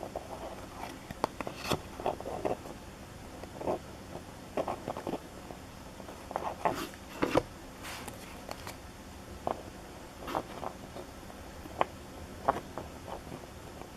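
Hockey trading cards and their pack wrappers being handled: irregular short snaps, flicks and rustles as the cards are opened and sorted through.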